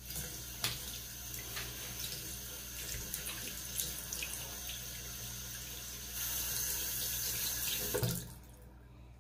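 Bathroom tap running into a ceramic sink while hands are rinsed under the stream, the water splashing off them. The flow gets louder about six seconds in, then stops shortly after eight seconds.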